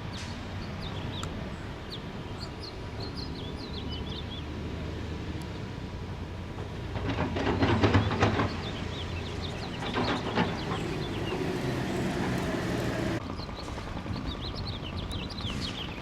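Outdoor street ambience: a steady low rumble with small birds chirping, and a louder clattering rumble building around seven to eight seconds in and again briefly near ten seconds, like heavy vehicles or machinery passing.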